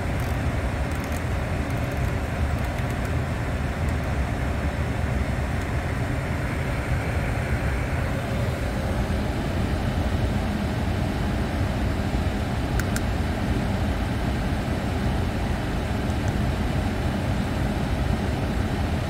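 Steady low rumble and rushing-air noise of a Boeing 747 flight deck, with a faint single click about thirteen seconds in.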